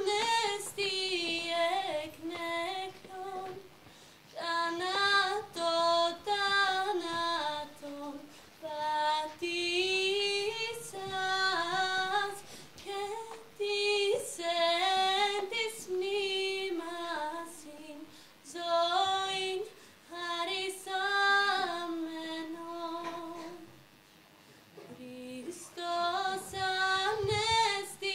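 A lone female voice singing a slow melody unaccompanied, in phrases with short breaks between them.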